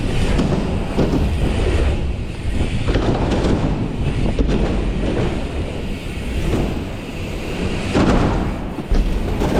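Continuous rumbling noise of a dirt jump bike being ridden through a run of ramps, its tyres rolling and the ride's noise on the microphone, swelling in surges a few times.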